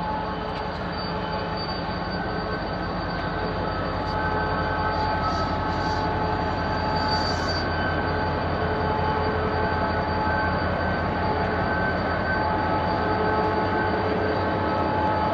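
Diesel locomotive running as it rolls slowly past at close range, its engine giving a steady low hum, with steady high-pitched squeals from the wheels on the rails that come and go. It grows a little louder about four seconds in.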